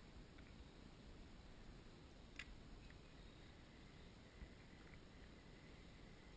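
Near silence, a faint steady hush, broken by one sharp click about two and a half seconds in and a soft knock a couple of seconds later.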